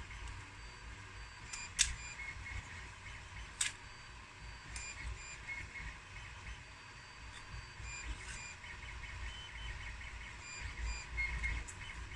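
3D printer stepper motors whining in short, changing tones as the print head moves, with two sharp clicks a couple of seconds apart.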